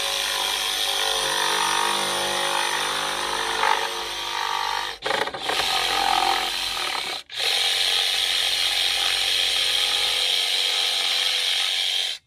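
Handheld power saw running as it cuts away the back of a baseboard's mitred end, stopping briefly twice, about five and seven seconds in.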